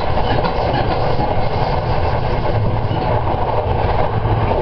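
A train running steadily along the track, heard from the front cab: a continuous rumble of the wheels on the rails over a low, even hum.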